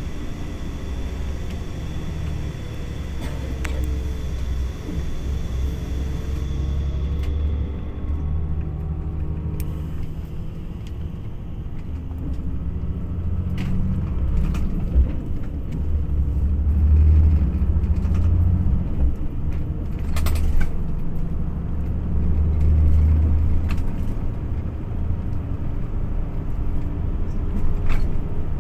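Motor vehicle running with a steady low rumble, with a few short knocks now and then.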